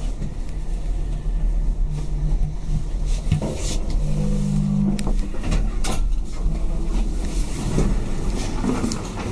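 A 1987 KONE bottom-driven traction lift running: a steady low rumble inside the car with a machine hum that rises and fades twice, and scattered clicks and knocks.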